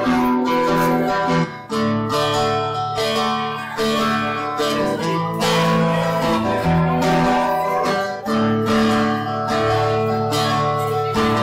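Acoustic guitar strumming a chord progression, played live with no singing.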